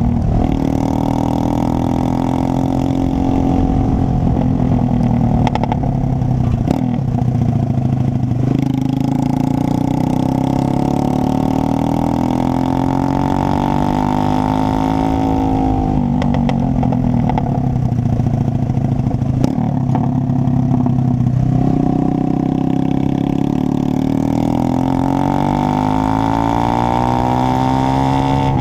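Horizon 190 motorcycle running through an open Roncar exhaust with no baffle, loud and raspy. The engine note climbs for several seconds, then drops sharply, about four times, as the bike pulls through the gears.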